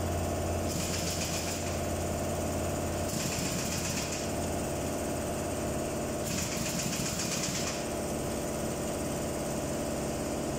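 A steady mechanical hum of an engine or motor running at constant speed, with a high hiss that comes and goes every few seconds.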